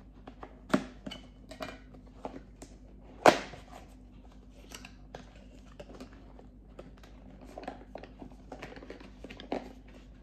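Handling and opening a small cardboard retail box: scattered light clicks and rustles of the packaging, with two louder sharp knocks, one about a second in and one a little past three seconds in.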